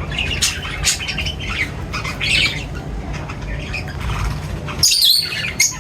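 A group of birds chirping and squawking in quick, overlapping calls, with one louder squawk near the end.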